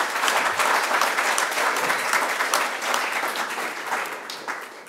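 Audience applauding: a round of clapping that tapers off near the end.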